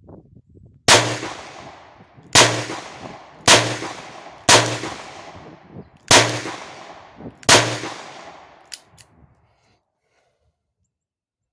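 Six shots from a Taurus 856 .38 Special revolver firing 130-grain Winchester full metal jacket rounds, about one to one and a half seconds apart, each trailing off over about a second. Two light clicks follow the last shot.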